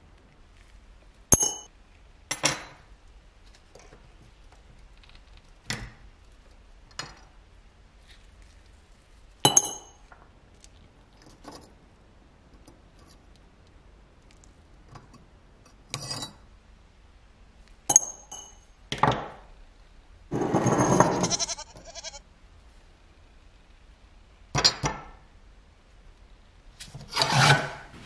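Small rusty steel parts of a pistol spark lighter clinking and tapping as they are handled and set down on a workbench: scattered separate clinks, several with a short metallic ring, and one longer handling noise lasting about a second and a half, some twenty seconds in.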